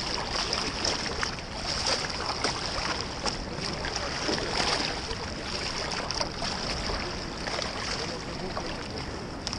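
Steady rush of river water at the bank, with scattered small clicks and splashes.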